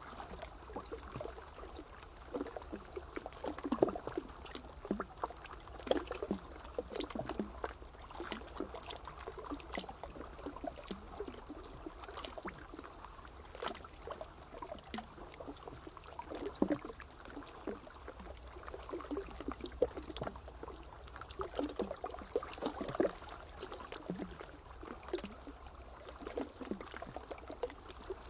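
Water trickling and splashing in irregular small bursts, over a steady low hum.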